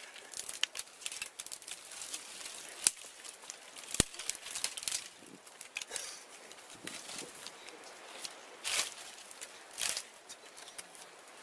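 Small fire of dry twigs crackling, with scattered sharp snaps of dry sticks, the loudest about three and four seconds in, and brief rustling bursts as the branches are handled.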